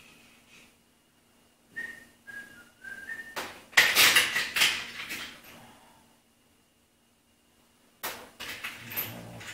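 A person whistles four or five short notes a couple of seconds in, then loose metal hand tools and sockets clatter loudly. The clattering stops for about two seconds, then starts again near the end.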